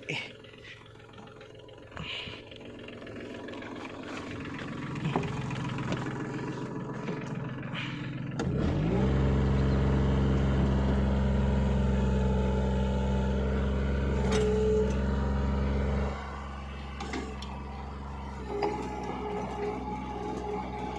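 Backhoe's diesel engine running, building gradually, then revving up about eight seconds in and holding a loud, steady high speed for about seven seconds before dropping back to a lower steady run with a thin whine near the end.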